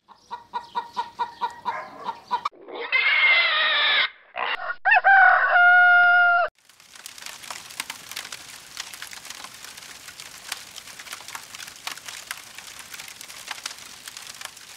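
Hens clucking in quick pulses, then a rooster crowing loudly in two long calls, the second ending on a held note and cutting off suddenly. A softer crackling hiss follows.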